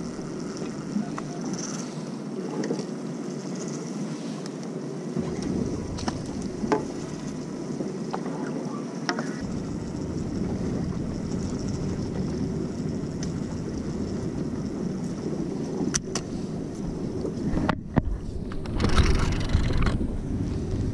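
Small fishing boat underway: a steady rush of engine and water noise, with wind buffeting the microphone, strongest near the end, and a few faint sharp ticks.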